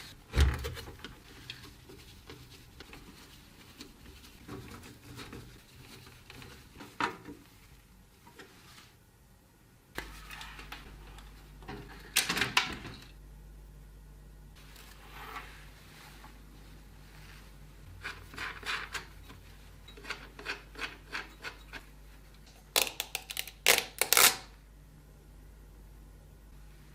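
Hands handling and fitting PC parts: scattered clicks, knocks and rubbing of plastic and metal. A knock comes right at the start, and there is a quick run of sharp clicks about four fifths of the way through. A faint steady low hum comes in about a third of the way in.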